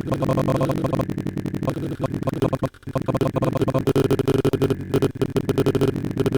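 Background music: a held chord with a rapid pulsing beat, briefly cutting out just under three seconds in.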